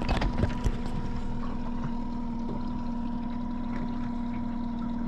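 Boat motor running steadily while trolling, a constant hum over low rumble and water noise, with a few sharp knocks in the first second.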